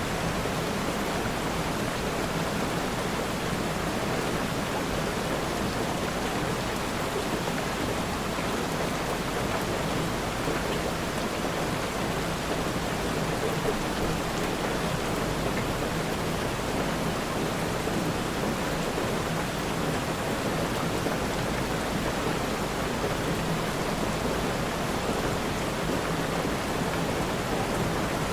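Steady rain falling, an even wash of noise that does not change.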